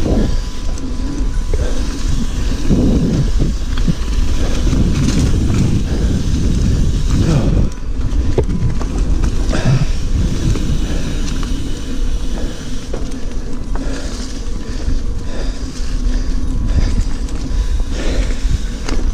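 Mountain bike riding on a dirt singletrack, heard from a handlebar camera: a steady low rumble of wind and tyres on the microphone, with scattered clicks and rattles as the bike goes over bumps.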